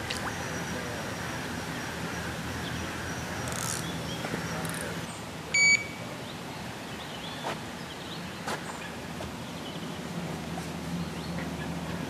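An electronic carp bite alarm gives a single short beep about halfway through. Behind it are a steady low hum, a few faint clicks and faint bird calls.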